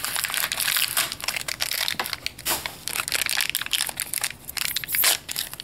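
Foil packet and clear plastic bag crinkling and crackling as they are handled and torn open by hand, a dense run of irregular crackles that grows sparser in the second half.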